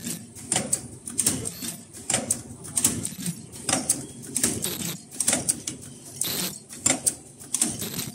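Automatic face-mask ear-band cross-welding machine running: a fast, uneven series of mechanical clicks and hissing strokes, about three a second, over a low steady hum.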